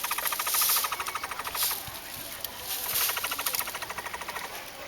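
Capybara calling with a rapid clicking, purr-like chatter: fast runs of short pulses, broken by a pause about two seconds in, then another run that fades. The uploader wonders whether it is a courtship call.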